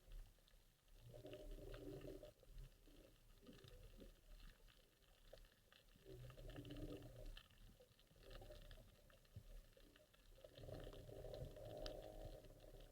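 Faint underwater sound: a scatter of fine crackling clicks, with three low rushing surges, each about a second and a half long, at a few seconds' spacing.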